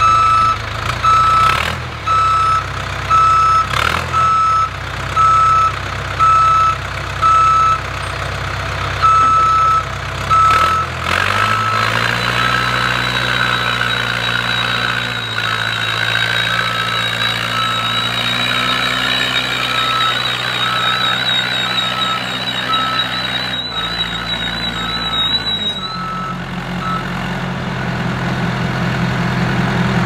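Backhoe loader's diesel engine running with its reversing alarm beeping about once a second. About eleven seconds in the engine note rises as the machine works harder; near the end the beeping stops and the engine note changes.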